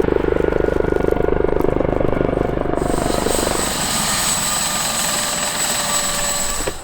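Helicopter's rotor blades chopping fast and loud; about three seconds in, the chop gives way to a steady rushing hiss with a high turbine whine.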